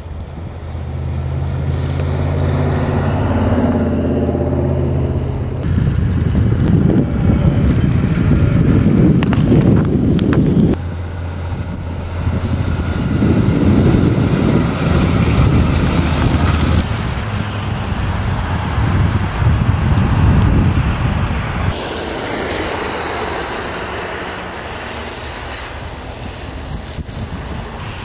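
Vehicles driving by on snow-covered roads, one of them a snowplow dump truck. First comes a steady engine hum for about five seconds, then several louder passes of engines and tyres through snow and slush that swell and fade.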